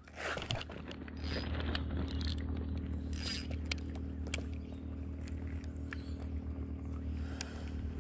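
Shimano Sienna 1000FG spinning reel being handled and wound, with scattered sharp mechanical clicks and rattles over a steady low rumble.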